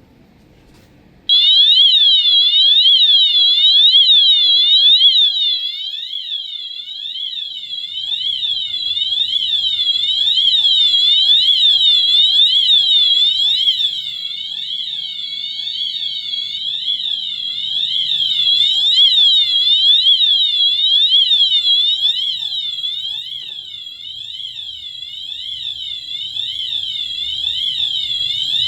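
Wheelock MT fire alarm horns sounding the Siren tone, a loud pitch sweeping rapidly up and down, starting about a second in. The loudness swells and fades several times as it goes on.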